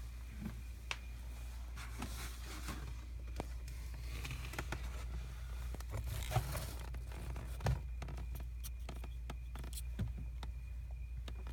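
Scattered light clicks, rustles and scrapes of things being handled, over a steady low hum.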